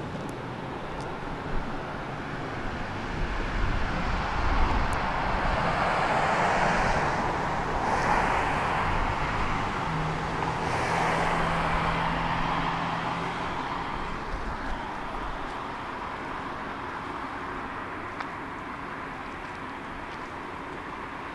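Tram running along its line, heard from on board: the rolling noise of the car swells and then eases off, with a low steady hum for a few seconds in the middle and a couple of short knocks near the start.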